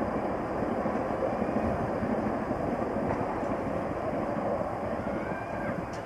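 Steady rushing rumble of an express train approaching along the track, still some distance away.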